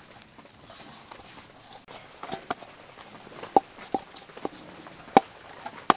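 Hands kneading soft wheat-flour (atta) dough with water: irregular sticky squelches and light slaps, starting about two seconds in and coming roughly one or two a second.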